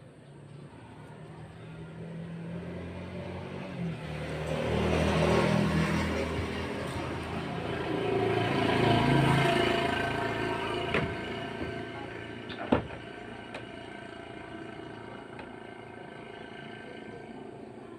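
Passing road vehicle engine noise, swelling and fading twice, about five and nine seconds in. A single sharp click near thirteen seconds.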